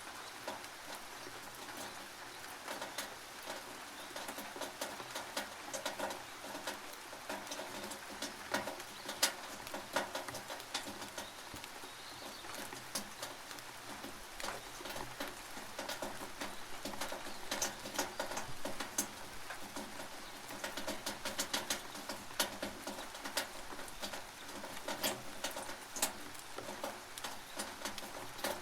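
Rain dripping and pattering on a tin roof: irregular sharp drop ticks, some louder than others, over a steady hiss of rain.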